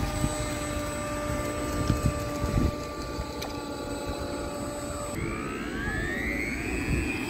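Radio-controlled model pontoon boat's motor whining steadily as the boat runs under power. About five seconds in the whine changes and climbs in pitch, then holds.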